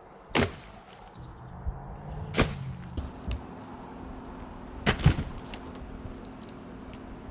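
Sharp thumps: one about half a second in, one near two and a half seconds, and a quick pair around five seconds, over a faint steady low hum.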